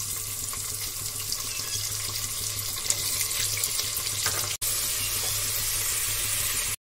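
Freshly sliced onions sizzling in hot mustard oil in a pressure cooker, a steady hiss that briefly cuts out about four and a half seconds in.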